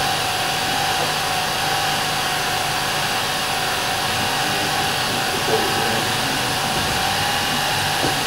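An 8mm cine projector running: a steady whirr with a faint constant whine.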